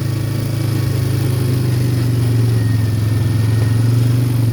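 ATV engine running steadily under throttle while riding, its pitch holding even and growing slightly louder toward the end.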